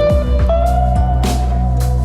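Background music led by guitar, with held, slightly bending notes over a steady bass and a regular beat.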